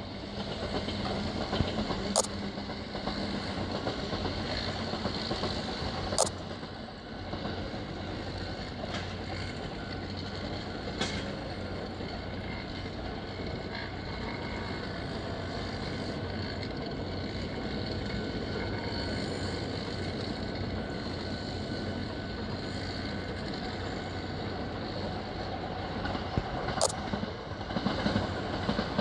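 Railway track-work machinery running steadily with a low hum, with a few sharp clicks or knocks here and there.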